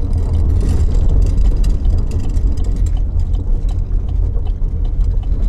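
A car driving, heard from inside the cabin: a steady heavy low rumble of engine and road noise with many small clicks and rattles running through it, as of tyres on a rough dirt road.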